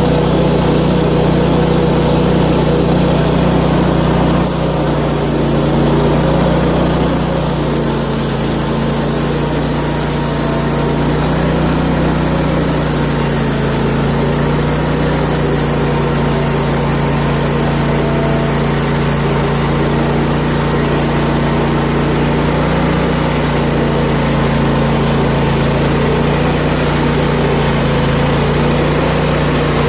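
Gas engine of a portable band sawmill running steadily, with a slight shift in pitch and level about four and a half seconds in.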